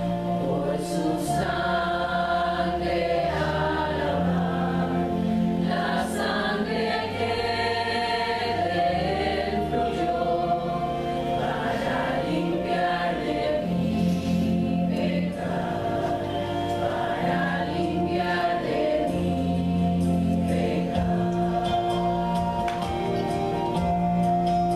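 Women's choir singing a slow sacred piece with held notes over a sustained instrumental accompaniment. Near the end the voices stop and the accompaniment carries on.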